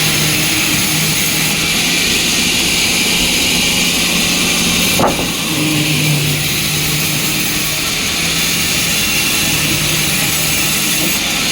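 Sawmill machinery running steadily, with a constant hum and a high hiss, and one sharp click about five seconds in.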